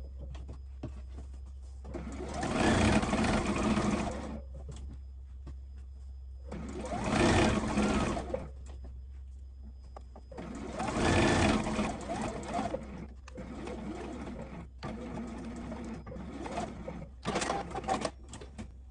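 JUKI electric sewing machine stitching a hem in three runs of about two seconds each, then a string of shorter bursts near the end.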